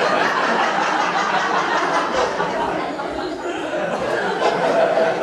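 An audience of children laughing and shouting together, a dense, steady crowd noise.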